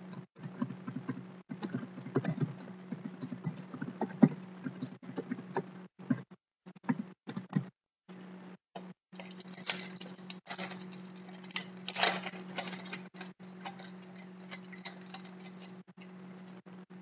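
Hands handling trading cards and a foil card pack on a table: light clicks and taps, then a stretch of crinkling wrapper noise, loudest about twelve seconds in, as the pack is opened. A steady low electrical hum runs underneath.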